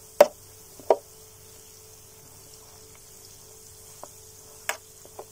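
Yeast foam on a freshly mixed sugar wash crackling as bubbles burst. There are a few sharp little pops, two in the first second and three more near the end, over a faint steady hum. It is the sign that the yeast has started to ferment the sugar.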